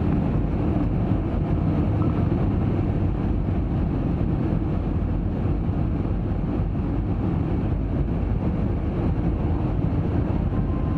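Steady cabin noise inside an Airbus A320 airliner: an even rush of airflow and engine noise, heaviest in the low end.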